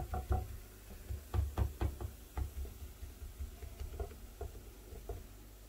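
Fingertips patting and pressing semolina harcha dough flat in a frying pan: a run of irregular soft knocks and thumps that stops about five seconds in.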